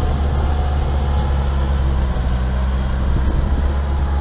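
Kubota tractor's diesel engine running at a steady speed: a constant, loud low drone.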